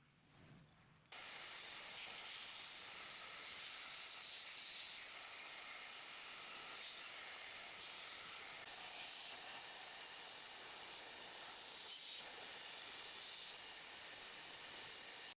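A steady hiss that starts suddenly about a second in and holds level, with no clear motor tone.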